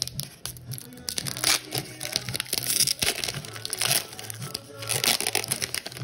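Foil wrapper of a Pokémon card booster pack being torn open and crinkled as it is pulled apart, in several crackly bursts, with music playing in the background.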